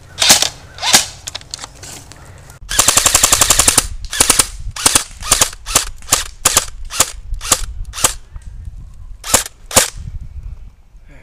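Airsoft electric rifles firing: two quick shots, then a full-auto string lasting about a second, then a run of rapid single shots about three a second, with two last shots near the end.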